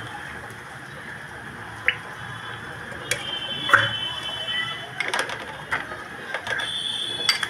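Scattered clicks and metal clinks at an iron kadhai as cooking oil is added, one of them with a short ringing.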